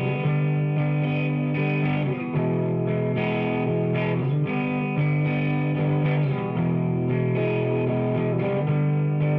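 Background music: distorted electric guitar playing held chords that change every second or two.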